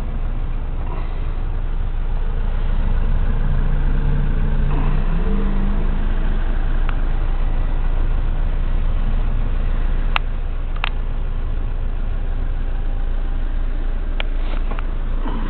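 BMW 2002 tii's fuel-injected 2.0-litre four-cylinder engine idling steadily, heard from inside the car's cabin. A few sharp clicks come about ten seconds in and again near the end.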